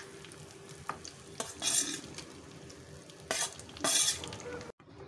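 Cooked rice tipped and scraped out of a steel bowl into a pan of tempering, with about three short scraping, rustling bursts and a couple of light clicks of metal on metal.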